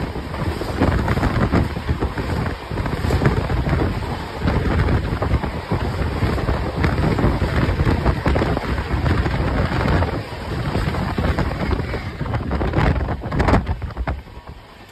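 Passenger train running on the tracks: a steady heavy rumble with rattling, overlaid with strong wind buffeting on the microphone. The noise drops away briefly near the end.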